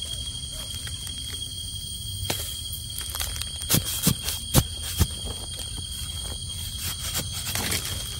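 Dry twigs and leaf litter cracking and rustling, with several sharp snaps between about three and five seconds in, over a steady high-pitched insect drone.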